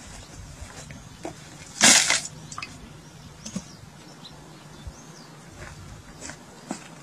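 A bundle of dry sticks dropped onto stony ground: one brief crash and rustle of twigs about two seconds in. A few faint, short high chirps follow.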